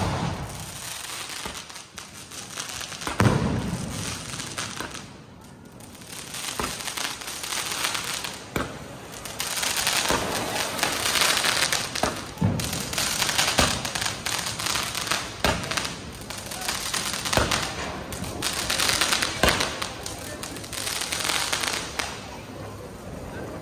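Ground fountain fireworks (flowerpots) hissing in long spells as they spray sparks. Several sharp firecracker bangs go off along the way.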